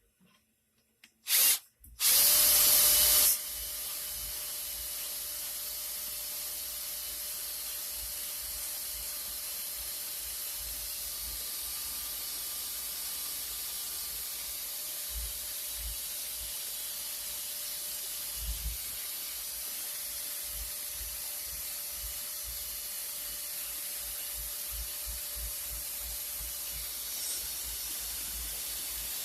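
Toilet flushed with a loud rush of water about two seconds in, then the tank refilling with a steady hiss and a faint whistle from the fill valve.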